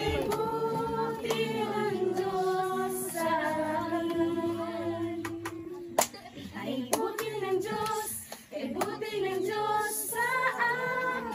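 A group of women and girls singing a worship song together in unison, with a few sharp hand claps along the way.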